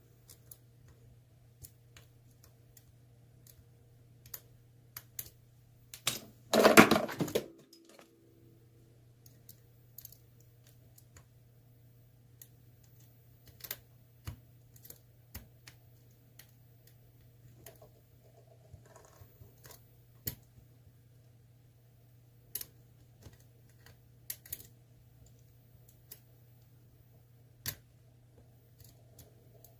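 Small, irregular clicks and scrapes of a dimple pick working the pins of an ASSA Twin Combi lock cylinder, with one louder noise lasting about a second, about seven seconds in.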